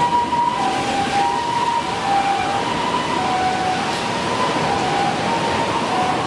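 Japanese ambulance's two-tone "pee-po" siren passing, switching between a high and a low tone about every 0.6 seconds, over a loud steady rushing noise.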